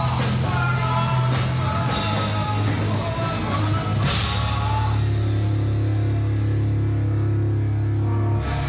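Alternative metal band playing live: distorted electric guitars, bass and drum kit. Cymbal crashes and drum hits drive the first half, then about four seconds in the band holds long, steady guitar and bass chords.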